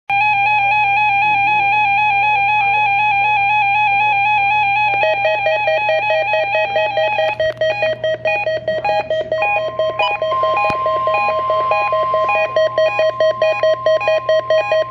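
Electronic alert tones from a weather radio broadcast: a buzzy tone pulsing rapidly, dropping lower about five seconds in and breaking into distinct beeps a couple of seconds later, with a steady high tone joining about ten seconds in.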